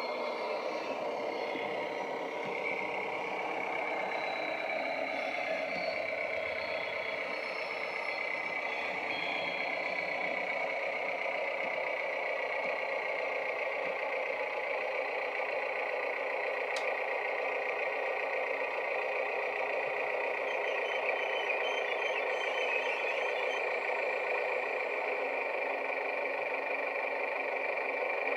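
Diesel railbus engine sound from the ESU LokSound 5 decoder in a Heljan OO-gauge railbus model, played through its small onboard speaker: a steady running engine note as the model moves along the track, dipping slightly in pitch about ten seconds in.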